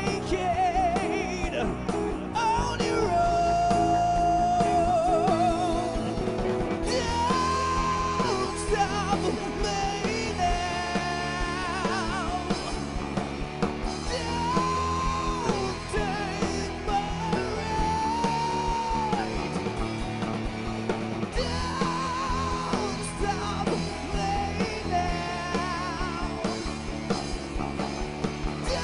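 Live rock band playing, with a lead vocal holding long notes with vibrato over electric guitars, keyboard and drums.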